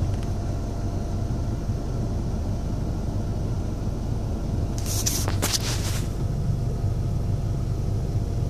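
Car engine running steadily, with a short burst of hiss and clicking about five seconds in.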